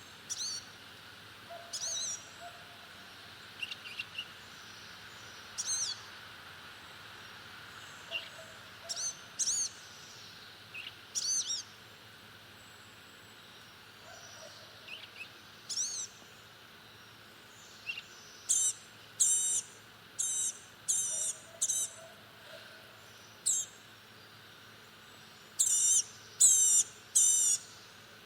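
Blue-gray gnatcatcher calling: short, thin, high call notes, scattered at first, then coming more often and louder in the second half, with three in quick succession near the end.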